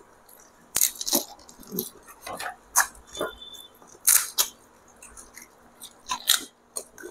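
Crisp pani puri shells cracking and crunching as they are bitten and eaten fast, a dozen or so short, sharp crunches at irregular intervals.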